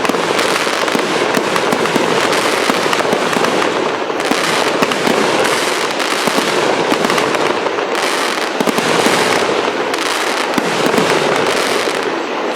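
Ronin 32-shot aerial finale set firing: a dense, unbroken stream of pops and crackles from overlapping aerial shots and their crackling effects.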